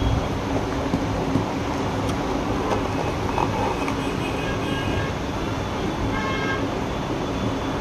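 Steady background rumble of road traffic, with short horn toots in the middle and a couple of light knocks early on.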